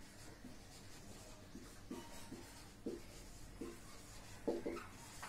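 Marker pen writing on a whiteboard: a series of faint, short strokes as a word is written out.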